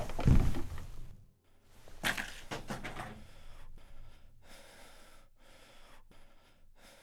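A dull low thump just after the start, then an old man's breathy gasp about two seconds in and faint sighing breaths that fade away.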